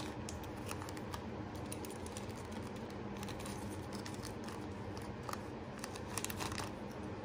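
Faint small clicks and light rustling of a metal jewelry pendant being turned over and handled by hand, with a denser run of clicks a little past five seconds in, over a low steady room hum.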